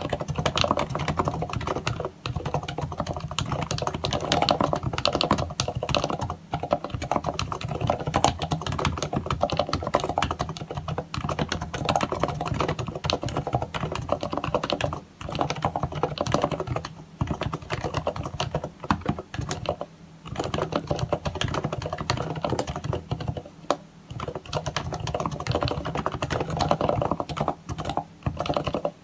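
Fast continuous typing on a Happy Hacking Keyboard Professional 1 with Topre electrostatic-capacitive switches, silenced and lubed, giving a dense run of muted keystrokes with a few brief pauses.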